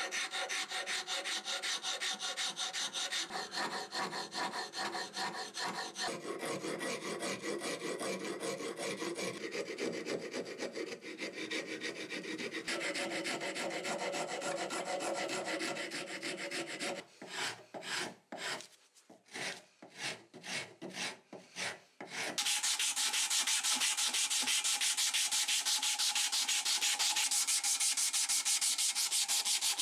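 Hand rasp and file shaping a wooden hammer handle in quick back-and-forth strokes. A bit past the middle the strokes come singly with short gaps. Then, in the last third, a brighter, hissier rubbing of sandpaper on the wood takes over.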